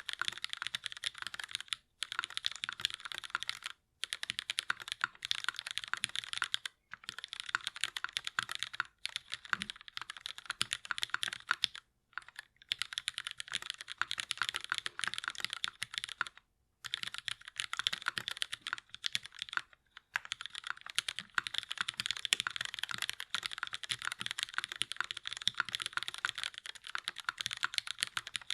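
Steady fast typing on a KMAC Happy mechanical keyboard with lubed Cherry MX Black linear switches, an aluminium plate and GMK keycaps: a dense run of key clacks, broken by several brief pauses.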